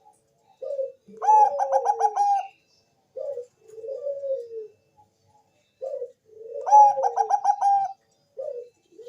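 Zebra dove (Bangkok perkutut) singing: two song phrases about five seconds apart. Each phrase is a short coo, then a quick rolling run of about six higher notes, then a falling coo.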